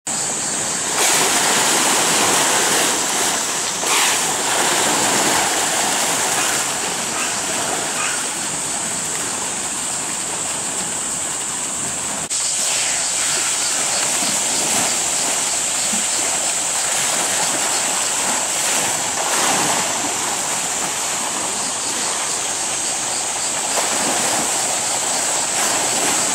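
Hippopotamus thrashing and rolling in a pool, churning the water in continuous heavy splashing, with a steady high-pitched hiss over it.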